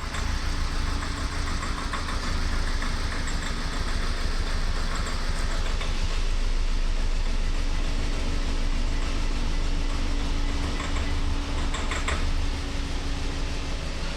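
Luxgen S3 reversing, its engine running with a steady low drone, with a loud abnormal metallic knocking coming through a few times. The owner likens it to metal striking metal.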